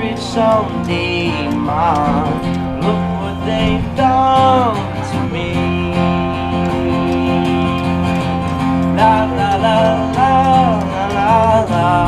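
Country-style background music with guitar, playing steadily over the whole stretch.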